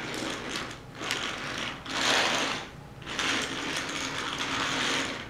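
Die-cast toy engine and tender pushed by hand along a plastic toy train track, its wheels rolling on the track in several stretches with short breaks, loudest about two seconds in.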